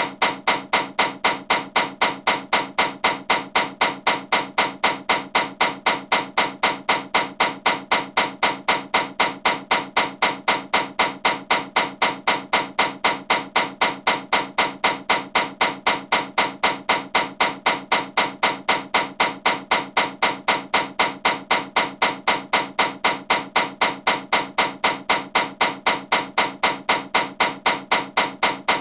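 Ceiling fan running with a loud, regular knocking, about three sharp clacks a second, each with a short metallic ring.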